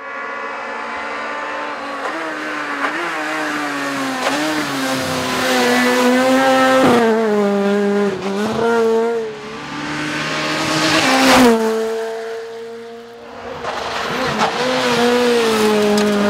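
Rally car engine revving hard, its pitch climbing and dropping back several times as it shifts through the gears, with sharp cracks about seven and eleven seconds in. It is loudest about two-thirds of the way through, fades, then rises again near the end.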